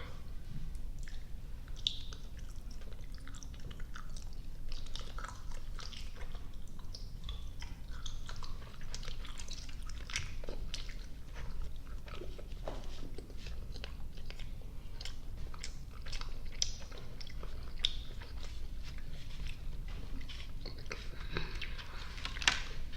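Close-miked mouth sounds of chewing soft, sticky gummy and marshmallow candy: continuous wet smacks and clicks of the lips and tongue, with a sharper click near the end.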